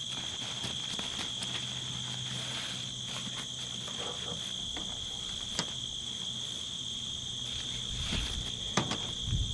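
Steady high insect chorus in the grass, with light rustling and a few small clicks from paracord and a nylon tarp being handled, and a couple of sharper knocks and low thumps near the end.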